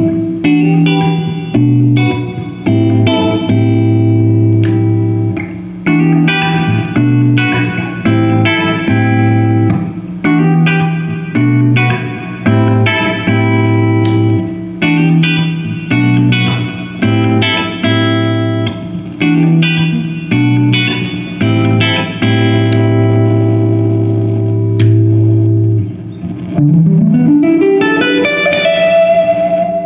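PRS McCarty 594 Semi-Hollow electric guitar played through a Marshall JCM2000 TSL tube amp: a riff of chords and low notes struck in a repeating rhythm, letting each ring. Near the end a single note slides steadily up in pitch.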